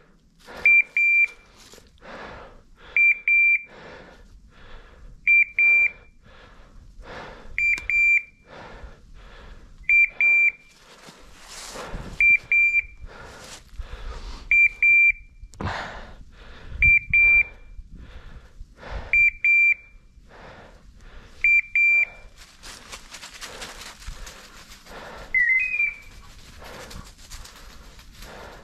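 A hunting dog's beeper collar giving a high double beep about every two seconds, over footsteps through undergrowth. The beeping stops about three-quarters of the way through, and a louder rustling of brush takes over.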